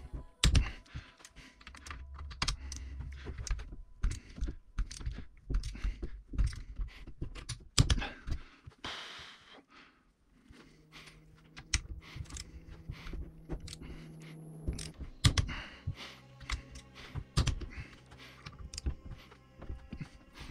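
Irregular clicks and light knocks of hand tools and metal parts being handled during work on a motorcycle engine's top end, with a faint low hum partway through.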